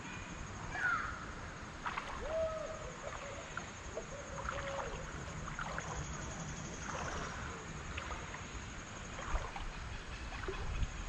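Creek-side ambience: a steady, high-pitched insect trill over faint moving water, with a few short chirps and scattered light clicks.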